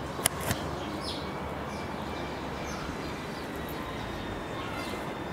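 Steady outdoor background noise with faint, scattered bird chirps, and one sharp click about a quarter second in.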